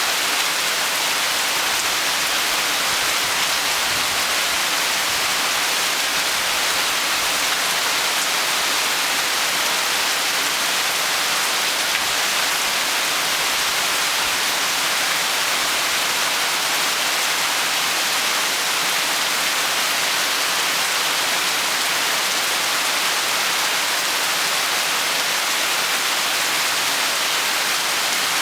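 Heavy tropical rain falling steadily, a dense even hiss of rain on surfaces.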